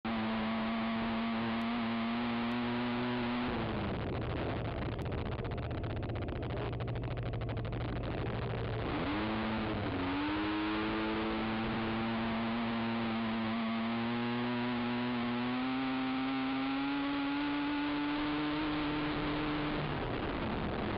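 Race ATV engine running under throttle. Its pitch drops as the throttle is let off about four seconds in, with a rapid ticking while off the gas. It climbs again from about ten seconds, rises slowly, and falls away near the end.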